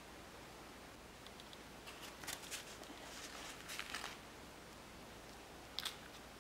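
Small plastic spoon of a Popin' Cookin' candy kit scraping and scooping candy powder in a plastic tray: a quiet run of scrapes and little clicks, then two sharp taps near the end as powder is pressed into the plastic cup.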